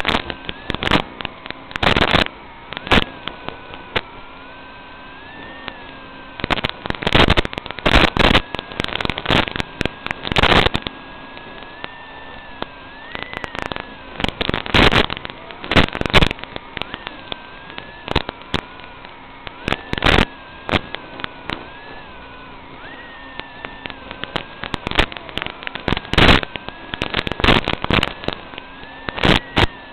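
Audio track of an analog FPV video link recorded by the goggles' DVR: a steady hiss and hum with a tone that wavers up and down, broken again and again by loud crackles of radio static.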